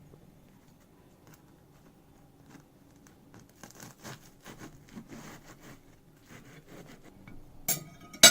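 Quiet, irregular scraping and tapping of kitchen utensils against a plate, ending with two sharp clinks near the end.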